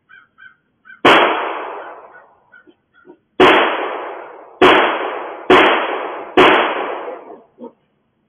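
Five gunshots, each a sharp crack that echoes away over about a second. The first comes about a second in, and four more follow from about three and a half seconds in, roughly a second apart.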